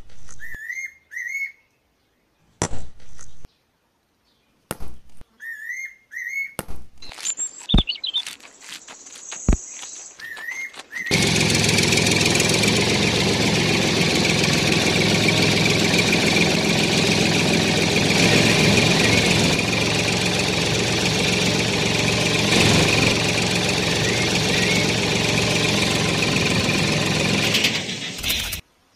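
Short bird chirps and a few sharp clicks, then about eleven seconds in a tractor engine starts running steadily, cutting off briefly near the end.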